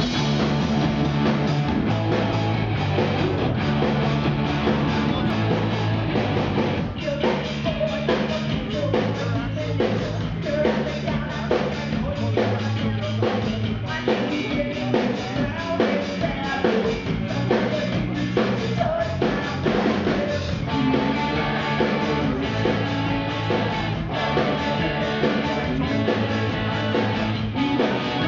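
A rock band playing live, with electric guitars, bass and a drum kit. A woman's lead vocal sits faint in the mix.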